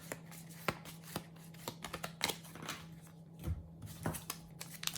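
Trading cards being handled and flicked through by hand: faint, scattered clicks and rustles of card stock over a low steady hum.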